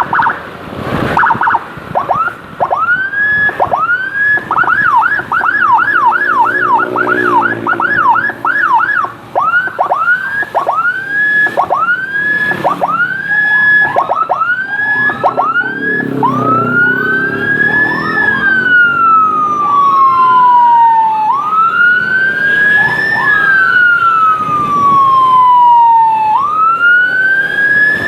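Electronic emergency siren switching patterns: quick rising chirps, about three a second at their fastest, slowing to about one a second, then from about halfway a slow wail that climbs and falls every few seconds.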